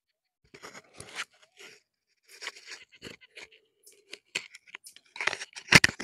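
Irregular scratchy crackling and rustling right against a clip-on microphone's foam windscreen, growing louder near the end.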